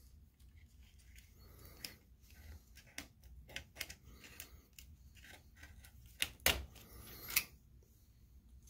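Small metallic clicks and scraping of a screwdriver turning a small screw and nut that fasten a MOSFET to a circuit board's metal heat sink, with a few sharper clicks about six to seven and a half seconds in.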